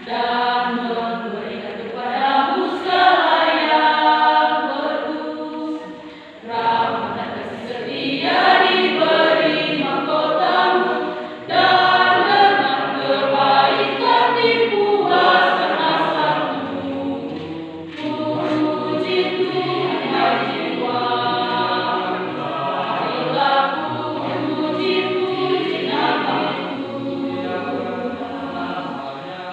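Women's church choir singing a hymn, sustained phrases with brief breaks between them.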